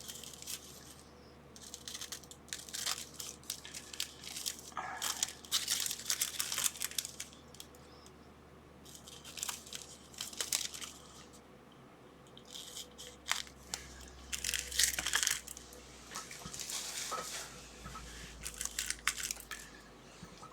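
Small plastic packaging bags crinkling and rustling in irregular bursts as they are handled and opened, with short quiet gaps in between.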